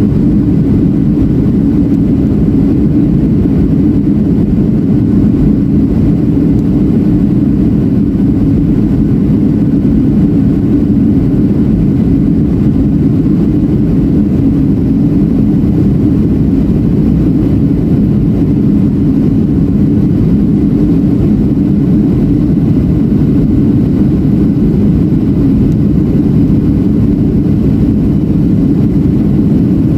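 Steady cabin noise of a Boeing 737-700 in flight: its CFM56-7B turbofan engines running and air rushing past the fuselage, heard from a window seat beside the engine, a low, even drone with no change.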